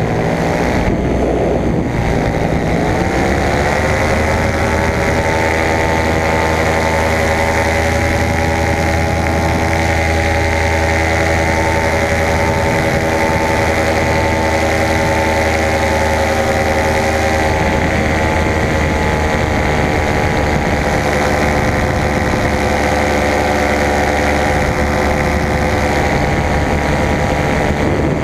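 Paramotor engine and propeller running loud and steady in flight. The engine note dips about a second in, climbs back over the next two or three seconds, then holds level.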